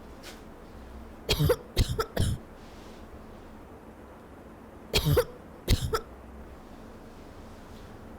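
A person coughing in two short fits: three harsh coughs about a second in, then two more about five seconds in.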